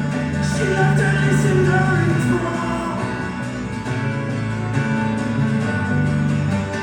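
Live band music with some wordless singing over it, the instruments holding steady notes.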